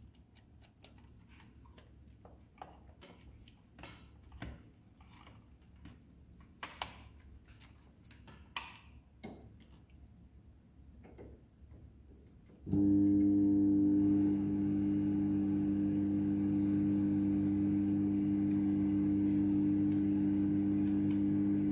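Scattered clicks and knocks of handling, then about 13 seconds in a Galanz microwave oven starts running on its low-power setting with a loud, steady mains hum that holds to the end.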